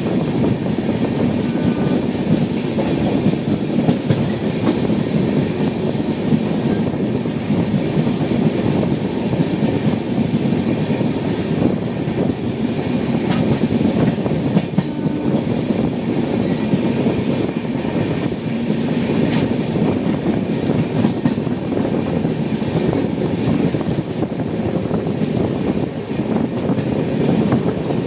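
Express passenger train running at speed: a steady, loud rumble of the coaches on the track, with occasional sharp clicks from the wheels.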